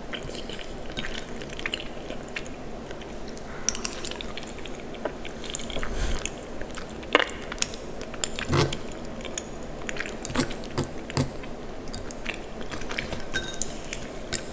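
Close-miked eating of mac and cheese: wet, sticky chewing and mouth sounds with scattered smacks and light clicks, the odd one louder. A steady low hum sits under it.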